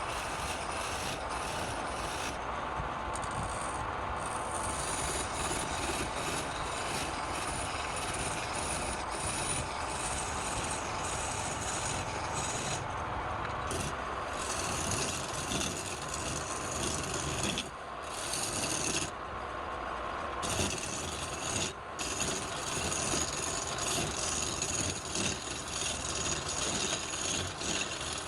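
A tool cutting or scraping wood spinning on a wood lathe, a continuous scraping noise. A few times the tool comes off the wood and the upper part of the noise briefly drops away.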